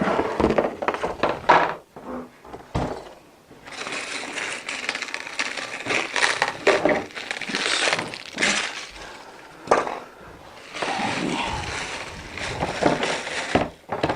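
Packaging being handled while vacuum parts are unboxed. Knocks and clicks come first, then long spells of crinkling and crackling from wrapping being pulled off and crushed.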